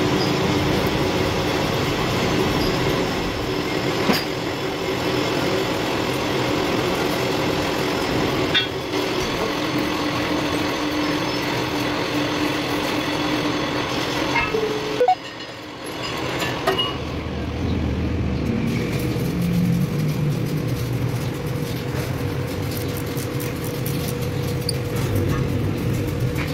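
Machinery running steadily with a hum and a few sharp knocks; the sound drops out abruptly about fifteen seconds in, then resumes with a lower rumble.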